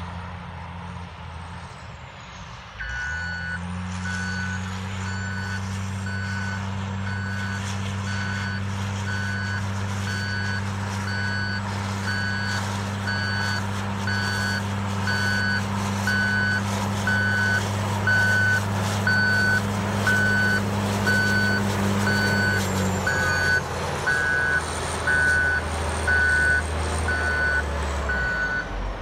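2004 CAT 825G Series II soil compactor reversing. Its backup alarm beeps steadily about once a second from about three seconds in, over the diesel engine, which picks up at the same moment. The engine note drops near the end.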